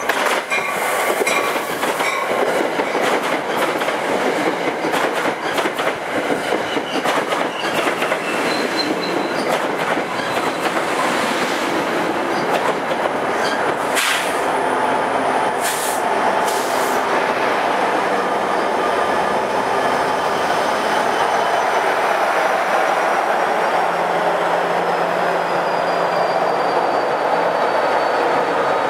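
New Jersey Transit commuter train passing close by at speed, a Comet V cab car leading and a PL42AC diesel locomotive at the rear: loud wheel clatter over rail joints and rushing rail noise, with sharp clacks as the locomotive goes by about halfway through. After that, a steady diesel engine drone with a faint high whine.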